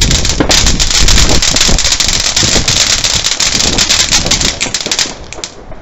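Ground firework fountain spraying sparks with a dense, rapid crackling that fades out about five seconds in.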